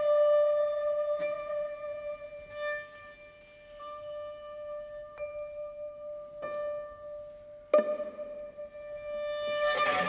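Contemporary chamber-ensemble music: a long held high note is cut across by sharp single accents every second or so. Near the end the full ensemble comes in, dense and louder.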